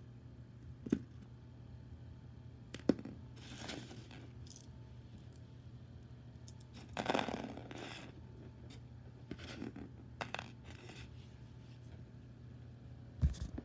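Small toys and wrapping being handled by hand: a few sharp clicks and knocks, two bursts of rustling about a third and half of the way in, and a louder knock near the end, over a steady low hum.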